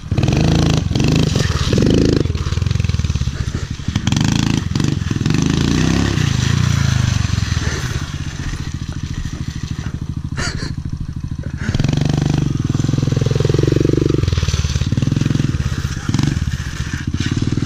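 Kawasaki KLX110 pit bike's small single-cylinder four-stroke engine revving up and falling back again and again as the rider lifts and holds wheelies, with a few short clacks.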